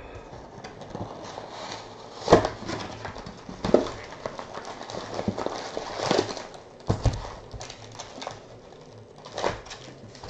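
A cardboard trading-card box being handled and its foil-wrapped card packs pulled out. Several sharp knocks and thumps of box and packs on the table over a light crinkle of wrappers.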